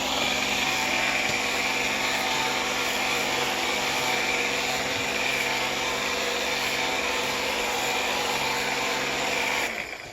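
Portable electric pressure washer fed from a 2-liter bottle, its motor and pump running steadily with a high whine as it sprays water, then cutting off near the end.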